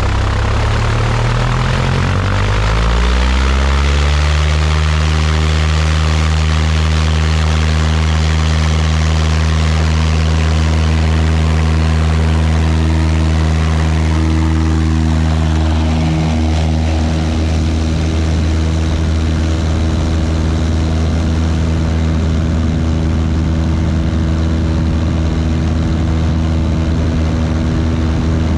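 A 180 hp Cessna 172's four-cylinder Lycoming engine and propeller running up to full takeoff power, the pitch rising over the first few seconds and then holding steady. Over it a rough rumble from the wheels rolling on the grass strip eases about halfway through as the plane lifts off.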